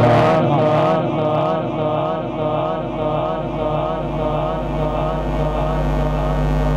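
Quran recitation (tilawat) by a male qari holding one long melodic note through the microphone, its pitch wavering in small ornaments without a break.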